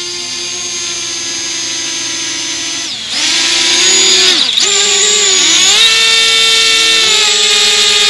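Parrot Anafi quadcopter's motors and propellers whining as it comes down to be caught by hand. The whine grows louder about three seconds in as the drone nears. Several pitches then glide up and down and cross each other as the motors correct, before settling into a steady high whine while it is held in the hand.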